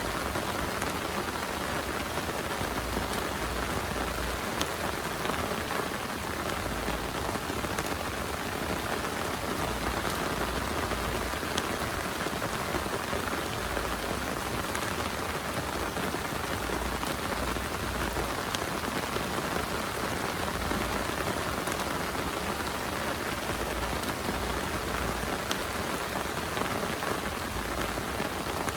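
Heavy rain falling steadily, with scattered individual drops ticking on a surface.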